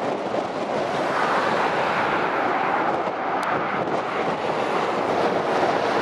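Road traffic on a dual carriageway: a Scania lorry and a van driving past, a steady rush of tyre and engine noise that grows a little louder near the end as the lorry comes close.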